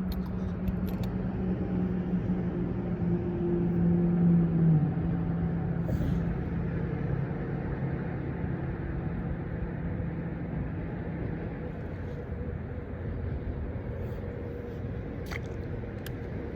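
An engine droning with a steady low hum that grows louder for the first four seconds or so, then drops away abruptly, leaving a steady rumble.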